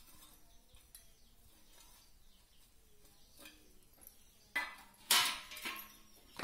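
Ground cowpea vada batter being mixed by hand in a metal bowl, mostly faint, with two louder scraping clatters from the bowl about four and a half and five seconds in.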